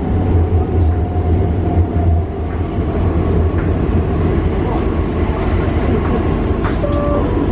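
Cabin sound of a Newag Impuls 2 electric multiple unit running into a station: a steady low rumble from the running gear with a faint falling whine from the traction drive, easing a little after about two seconds. A brief tone sounds near the end.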